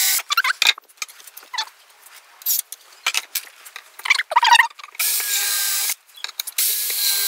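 Cordless drill boring pilot holes into an MDF panel: two runs of the motor with a steady whine, about a second each, starting about five seconds in, with short high squeaks in the gaps between.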